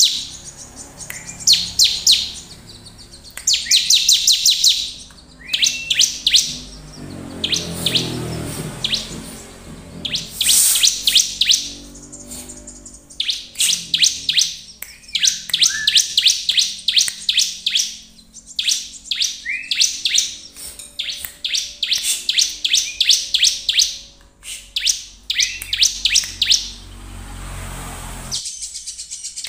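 Bar-winged prinia (ciblek) singing vigorously: burst after burst of rapid, high-pitched chattering notes, each phrase about a second long with short pauses between.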